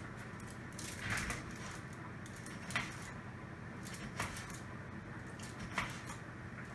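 Kitchen knife slicing a lemon on a plastic cutting board: four short knocks, about one and a half seconds apart, as the blade goes through and meets the board, over a steady low room hum.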